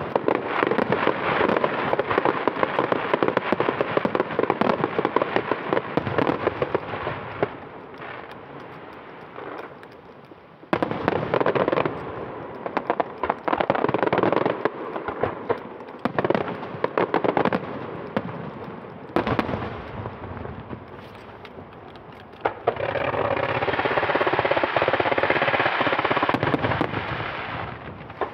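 Aerial firework shells bursting in rapid, dense volleys with crackling. A long volley fills the first seven seconds, another starts suddenly about eleven seconds in, and a steady crackling barrage runs from about twenty-three seconds until just before the end, with a few single bangs in the lulls.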